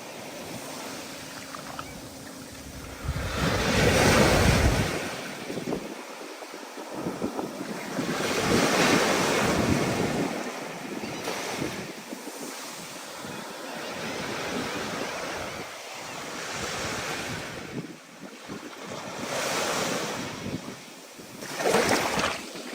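Stormy sea: waves breaking and washing in, the surf swelling and falling every few seconds. Wind buffets the microphone, strongest in a low gust about four seconds in.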